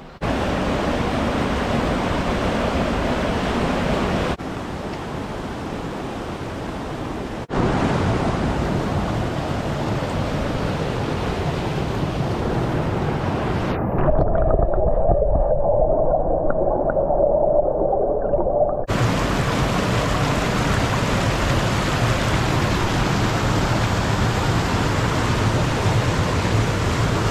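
Rushing mountain river water and a small waterfall, a loud steady hiss of flowing water across several cuts. About halfway through, for some five seconds, it turns muffled and gurgling, heard from underwater with bubbles churning in the pool.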